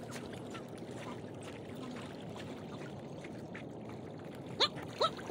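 Steady wash of open water lapping around the waders and decoys. Two short, sharp calls come near the end.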